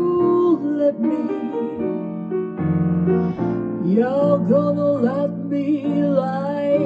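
Female jazz vocal with grand piano accompaniment: the piano plays chords throughout while the voice holds long notes with vibrato, briefly at the start and again through the second half.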